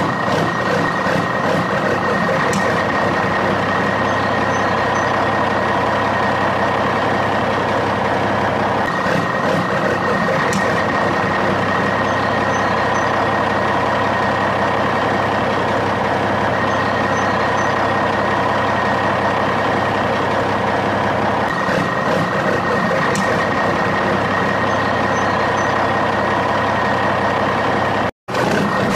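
Heavy truck engine running steadily, a continuous drone with a thin high tone over it. It cuts out for an instant near the end.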